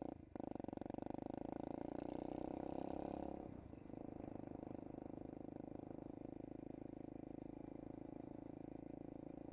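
SSR 125cc pit bike's single-cylinder engine running while under way. The note dips briefly just after the start, then drops in level and changes pitch about three and a half seconds in.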